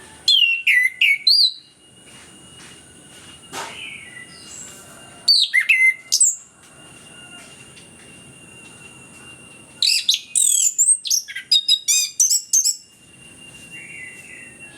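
Chestnut-capped thrush (anis kembang) singing in full voice, in three bursts of fast, sweeping, high whistled phrases: briefly at the start, again around five seconds in, and a longer, richer run from about ten to thirteen seconds in. A faint steady high tone sounds underneath throughout.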